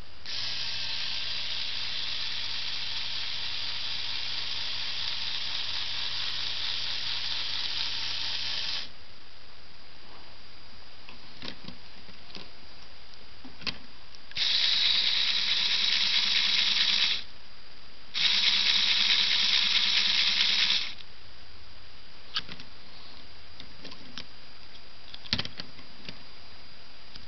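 A small Lego electric motor running with a steady whine, switched on three times: one long run of about nine seconds, then two shorter runs of about three seconds each. Between the runs come a few sharp clicks of plastic parts being handled.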